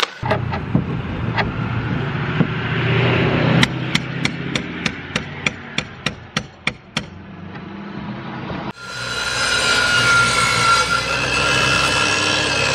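Hammer blows on wood, a quick even run of about a dozen sharp strikes, roughly three a second. About nine seconds in, a handheld circular saw starts abruptly and runs with a steady whine as it cuts into the old wooden roof boards.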